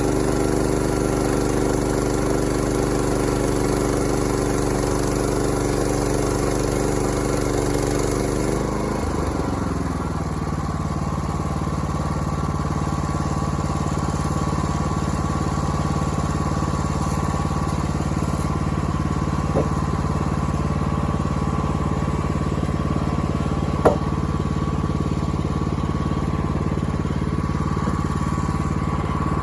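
An engine running steadily; about nine seconds in its pitch drops and it settles at a lower, steady speed, with a couple of sharp clicks later on.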